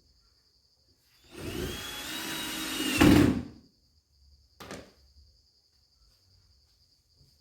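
A power tool runs for about two seconds, loudest just before it stops, followed by a single sharp knock. Crickets chirp steadily in the background.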